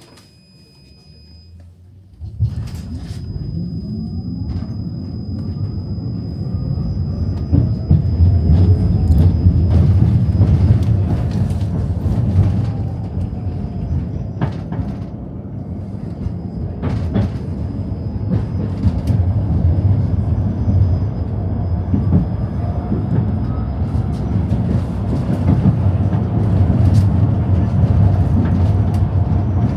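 Tram running on its rails, heard from inside the car: a loud low rumble that sets in suddenly about two seconds in and swells, with scattered sharp clicks and a faint steady high whine.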